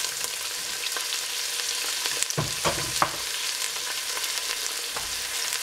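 Sliced red onions sizzling in hot oil in a stainless steel pot: a steady crackling hiss, with a few louder clicks about halfway through.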